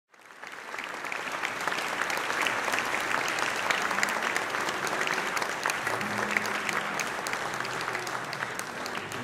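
Audience applauding, fading in at the start and holding steady. A few soft low instrument notes sound under the clapping from about six seconds in.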